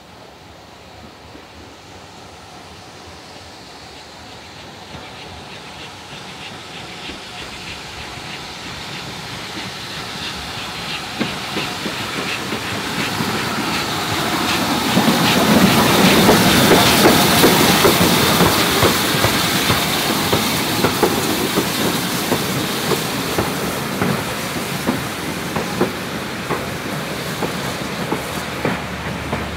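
GWR Large Prairie 2-6-2 tank steam locomotive No. 4144 approaching and running past with a steam hiss, growing steadily louder to a peak as it passes about halfway through. Its coaches follow, wheels clicking over the rail joints.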